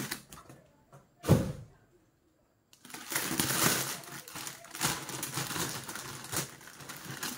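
A thump about a second in, then packaging rustling and crinkling as it is handled and unwrapped.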